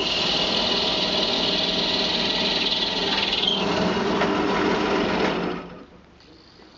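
Bench pillar drill running and boring a 13 mm hole into the heel of a buffalo horn handle, a steady, loud cutting noise that stops about five and a half seconds in.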